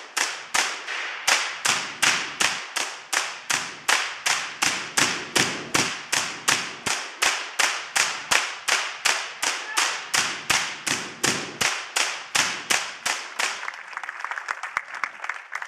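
High-voltage sparks from a giant air-insulated Van de Graaff generator striking a metal cage, a sharp crack about three times a second. Near the end the cracks turn quicker and weaker.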